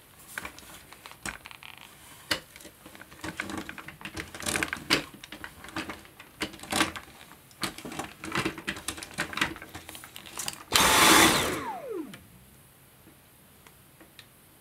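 Hard plastic clicks and knocks as the Dyson V7's wand and motorhead floor tool are handled and fitted together. About eleven seconds in, the vacuum's motor runs for about a second with a rush of air, then winds down with a falling whine.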